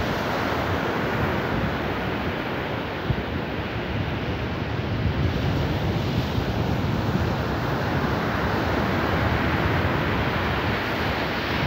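A dog digging fast in loose soil with its front paws: a steady, continuous scratching and scraping of earth.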